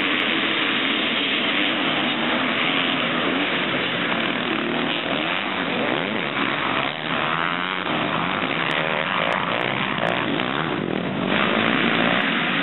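A pack of motocross bikes racing off the start, many engines revving together at once, the field passing close by about six seconds in.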